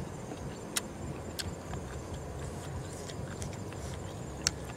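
Eating: a few short, sharp clicks and smacks as squid salad is chewed and picked up with a fork, one about a second in, another shortly after, and the loudest near the end.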